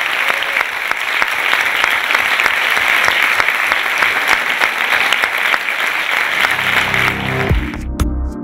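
Audience applauding. Near the end electronic music with a steady beat comes in and the applause cuts off suddenly.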